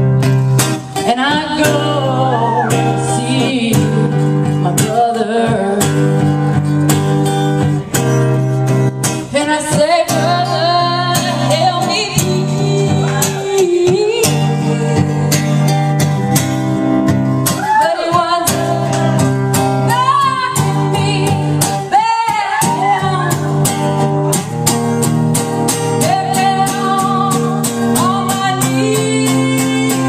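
A song played on strummed acoustic guitar under a singing voice, the voice sliding and wavering between held notes.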